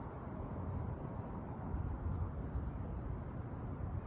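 Insects chirping outdoors in a steady, high-pitched pulsing rhythm, a few pulses a second, over a low rumble.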